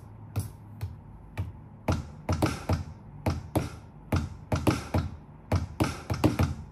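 Wooden drumsticks tapping on the black pads of a homemade Arduino drum kit in a quick, uneven beat of about three strikes a second, some in quick pairs.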